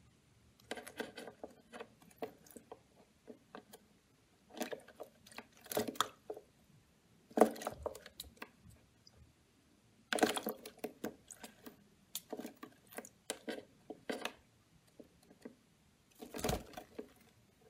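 Masked lovebird splashing in a small plastic bird bath, fluttering its wings in the water in about six short bouts of rapid splashes with quiet pauses between.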